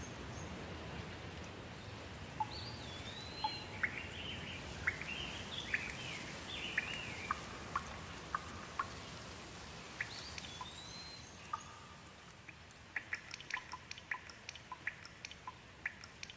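Steady rain hiss with a bird calling through it: quick chirps that glide up and down, starting a few seconds in. Past the middle the rain eases, and separate drips tap sharply several times a second near the end.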